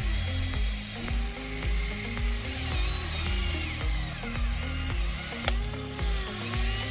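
Background music with a steady stepping bass line. Over it, the RC excavator's small electric motors whine in rising and falling glides about halfway through, and a sharp click comes near the end.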